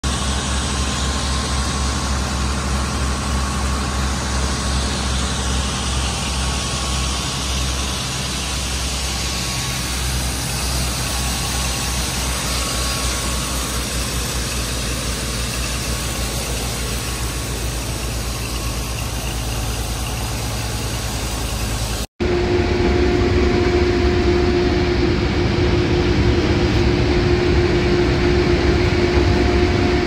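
Farm harvest machinery running steadily: a low engine drone, then after an abrupt cut about two-thirds of the way through, the louder steady hum of a combine harvesting corn, with a constant whine held underneath.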